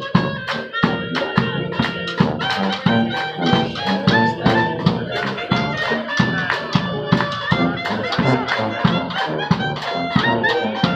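Small brass street band playing a lively tune: trumpets and a tuba over a steady beat on a bass drum and a second drum.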